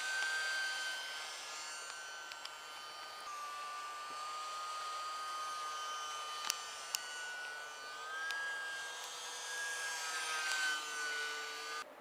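Small brushless electric motor and propeller of an E-flite UMX micro Gee Bee racer RC plane in flight, a steady high whine that drops in pitch about a third of the way in and rises again later as the throttle changes. Two brief clicks come near the middle, and the whine cuts off just before the end.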